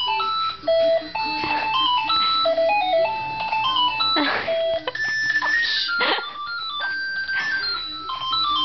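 House phone playing an electronic melody ringtone: a quick run of clean beeping notes that step up and down in pitch without a break, with a few brief rustling noises over it.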